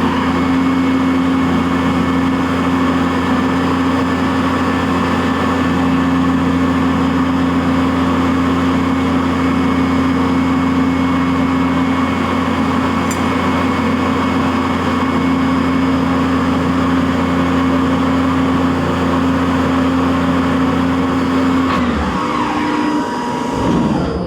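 CNC vertical mill's spindle running at a steady speed while milling Delrin, a constant mechanical hum with a hiss of cutting noise. About 22 seconds in, the pitch falls away as the spindle winds down.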